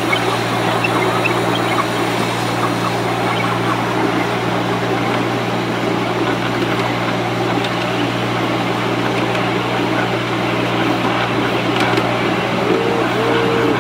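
Miniature railway train running, heard from a passenger carriage: a steady low hum from the locomotive with the rumble and rattle of wheels on the track. Near the end come two short honk-like tones.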